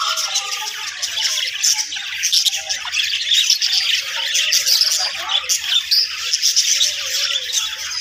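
Flock of budgerigars chattering: a dense, continuous mass of short high chirps and squawks.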